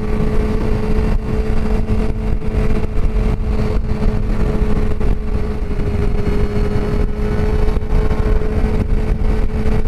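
Sportbike's inline-four engine running at a steady speed at highway cruise, its even hum under heavy wind rush on the microphone.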